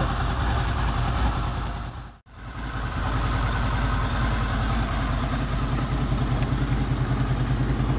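Honda VFR800 VTEC's V4 engine idling steadily while warming up after a timing-chain replacement. The sound cuts out briefly about two seconds in, then the idle resumes with an even pulsing.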